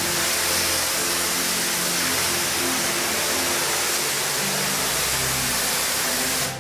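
Pressure-washer lance spraying water onto a tiled floor: a steady, loud hiss that cuts off suddenly near the end.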